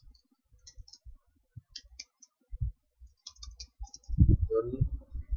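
Typing on a computer keyboard: a scattered run of key clicks with dull thumps, growing louder and denser about four seconds in.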